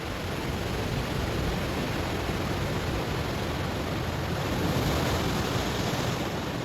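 Ocean waves breaking on a stony shore: a steady rush of surf that swells to a peak about five seconds in and then eases off.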